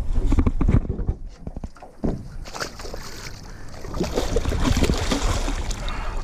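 Thumps and knocks against an aluminum boat's hull as a large white sturgeon is handled over the side, then water splashing and sloshing as the fish is held in the river and let go.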